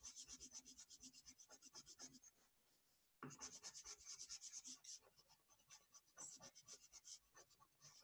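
Faint sound of a coloured pencil scribbling on paper in quick back-and-forth shading strokes, with a brief pause about two and a half seconds in.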